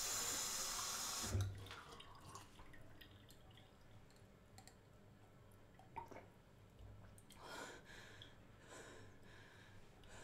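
Kitchen tap running into a drinking glass, shut off about a second and a half in with a low thump. Then quiet, with a sharp click about six seconds in and a couple of soft, brief noises near the end.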